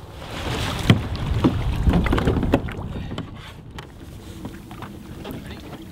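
Water splashing and sloshing beside a sit-on-top kayak as a swimmer in the water moves against its side, with a few sharper splashes in the first half, then quieter lapping. Wind rumbles on the microphone.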